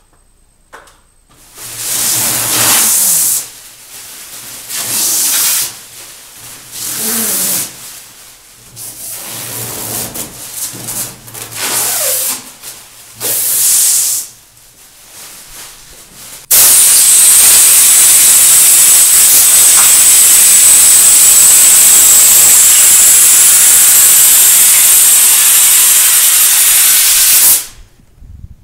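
Several short, uneven bursts of work noise, then a loud, steady hiss of compressed air from an air hose that starts abruptly about halfway through and cuts off suddenly about ten seconds later.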